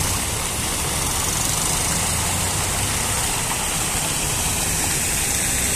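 Steady rushing of a fountain's splashing water jets, with a low engine hum from a motor vehicle running underneath.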